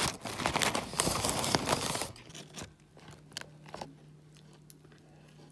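Paper food wrapper crinkling and rustling for about two seconds as it is handled. Then it goes quieter, with a few scattered crunchy clicks and a low steady hum.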